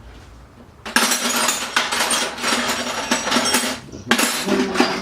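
Metal hand tools clinking and clattering as someone rummages through them for a tool. It starts about a second in and breaks off briefly near four seconds.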